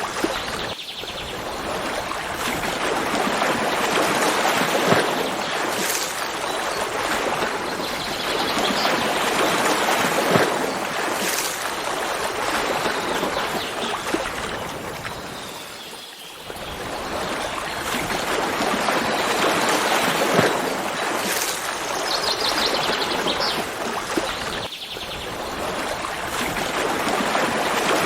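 Running stream water, a steady rushing and trickling that swells and fades. A bird gives a short, rapid, high trill near the end.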